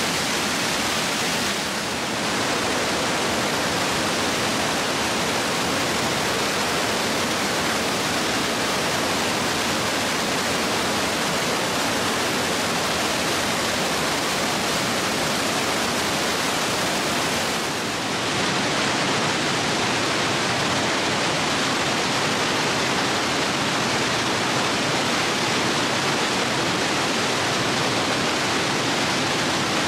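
Steady loud rushing of water, dipping briefly about two seconds in and again a little past halfway.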